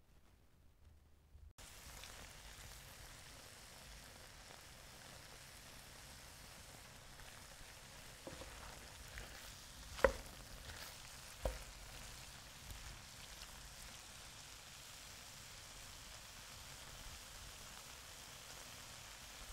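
Food sizzling steadily in a frying pan, starting about a second and a half in. About halfway through come two sharp knocks a second and a half apart, the first the louder.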